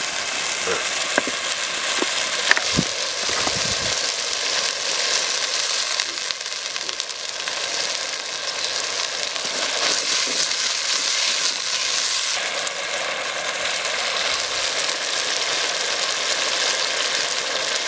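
Onions, dried red chillies and spices frying in a clay pot, a steady sizzle. A few sharp clicks and knocks in the first few seconds.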